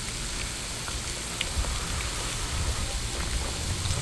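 Steady sizzling of pork and seafood cooking on a charcoal-heated mookata grill pan, with a low rumble underneath and a few faint clicks.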